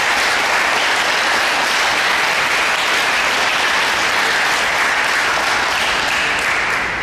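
A small group applauding with steady hand clapping, dying down at the very end.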